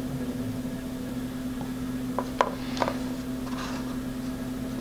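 Steady low electrical hum with a few faint, light clicks and taps from handling wires and the soldering iron on a small circuit board, mostly about two to three seconds in.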